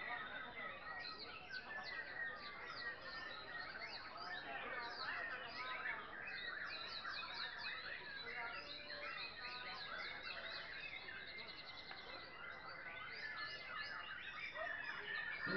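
Many caged songbirds singing at once, a dense, unbroken chorus of quick chirps, trills and whistles.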